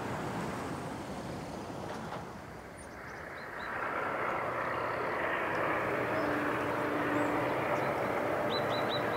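Distant heavy vehicle engines running, a steady rumble that grows louder about three seconds in, with a few short high chirps near the end.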